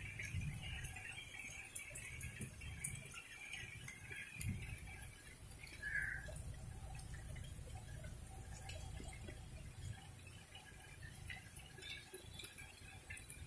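Rain falling, with scattered drips and small ticks of drops over a low rumble.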